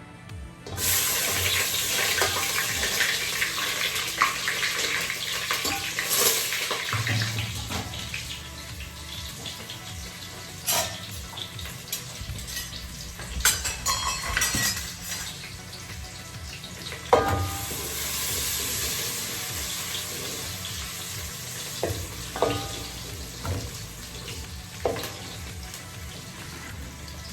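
Kitchen sounds while cooking: a steady hiss, running water or food frying, that starts suddenly about a second in, with scattered clinks and knocks of pots and utensils.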